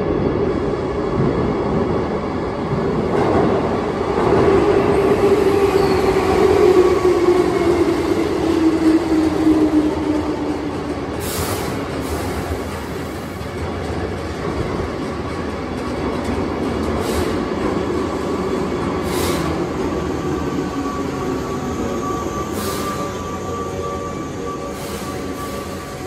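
Keihan 8000-series electric train running into an underground station and braking. Its running hum falls steadily in pitch as it slows, sharp clicks come from the wheels about halfway through, and a steady high squeal builds in the last several seconds.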